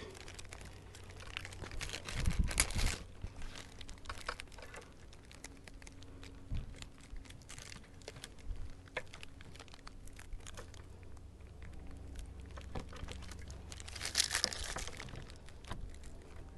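Hands handling the headlight's wiring and plastic parts: rustling, crinkling and scattered small clicks, louder about two seconds in and again near the end, over a faint steady hum.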